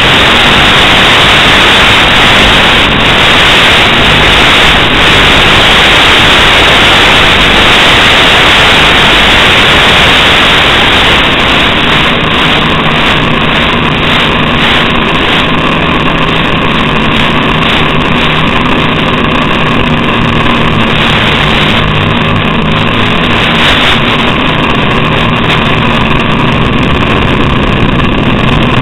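Loud, steady hiss of static on the audio channel of an analog FPV video link, recorded by the receiving goggles. From about eleven seconds in, a few steady humming tones run through the hiss.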